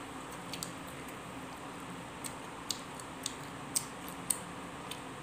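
Faint table noises from eating a meal: several short, sharp little clicks and ticks at irregular intervals over a low steady room hum.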